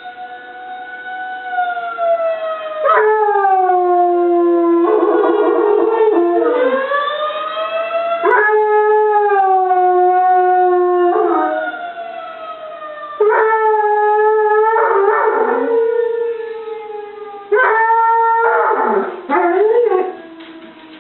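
A Treeing Walker Coonhound howling along with a wailing tornado siren: long held howls that jump in pitch every few seconds, with rougher, wavering bits between them. Near the end the howling stops and a quieter tone slowly falls away.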